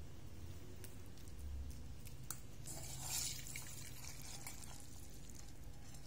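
Boiled instant noodles and their cooking water tipped into a wire-mesh strainer: a short splash of draining water about halfway through, then dripping. A few light clicks of metal come before it.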